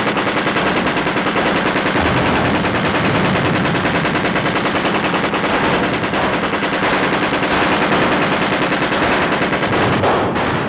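Sustained machine-gun fire from a belt-fed Maxim machine gun: rapid shots running together in one long unbroken burst.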